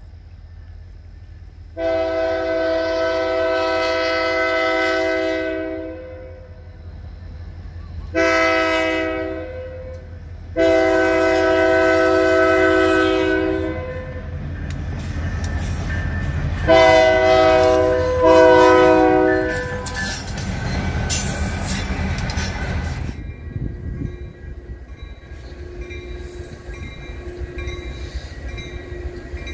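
Diesel locomotive's multi-note air horn sounding five blasts: long, short, long, then two short. The locomotive and its cars then pass close by with a heavy engine rumble and wheel clatter. Near the end a quieter horn sounds faintly, in short notes.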